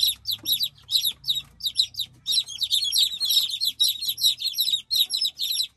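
A brood of native chicken chicks peeping: many short, high chirps overlapping in quick succession with hardly a break.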